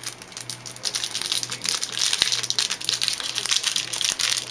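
Plastic or foil wrapping on a trading-card pack crinkling as it is handled and opened at close range: a dense, irregular crackle.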